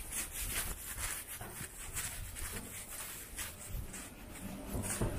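Footsteps of someone walking on pavement, about two steps a second, over a low background rumble.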